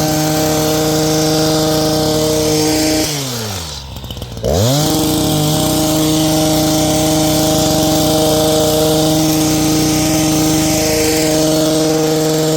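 Hedge trimmer's motor spinning up to full speed and running steadily while trimming shrubs. It winds down about three seconds in, then spins up again a second or so later and holds a steady whine to near the end.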